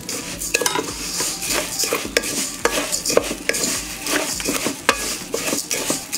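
Wooden spatula stirring roasted vermicelli in hot ghee in a metal pot: repeated scrapes and clicks against the pot over a light sizzle, as the vermicelli is warmed through.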